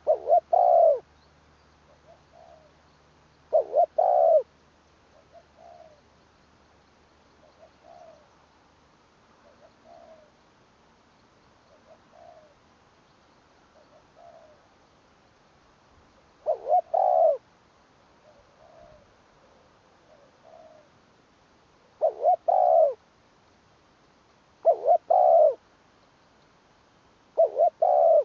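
Spotted doves cooing: loud phrases of two or three deep notes repeat every few seconds, while a fainter dove coos single notes about every two seconds in the gaps.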